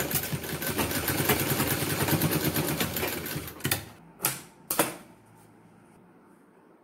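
Sewing machine running fast with an even, rapid stitching clatter while sewing the side seam of a collar. It stops about three and a half seconds in, followed by a few short sharp sounds as the cloth is pulled out from the needle, and then a faint low hum.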